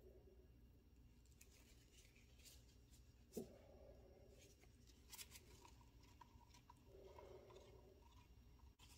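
Near silence: room tone with a few faint light taps, the clearest about three and a half seconds in.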